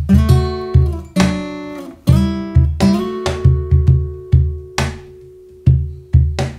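Music: a guitar strumming chords in a steady rhythm, with a strong low bass end under each stroke.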